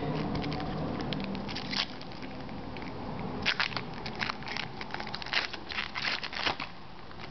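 Plastic trading-card pack wrapper being torn open and crinkled in the hands: a run of sharp crackles and rips, sparse at first and thickest from about halfway through.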